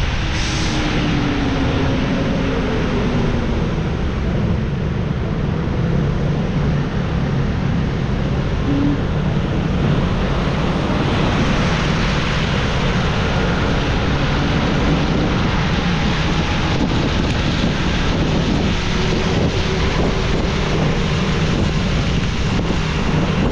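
Steady rush of road and tyre noise from a car driving in the rain, with a low engine rumble underneath.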